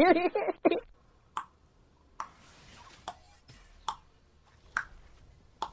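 A series of sharp, evenly spaced clicks, about one a second, after a brief tail of music at the start.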